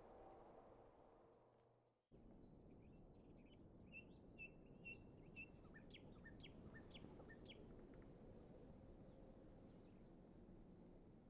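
Faint bird chirps over a low steady hiss: a quick run of short, high chirps in the middle, with a higher note near the end.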